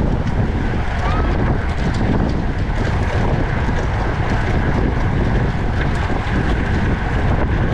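Loud, steady wind rushing over the microphone of a camera riding on a racing bicycle at speed.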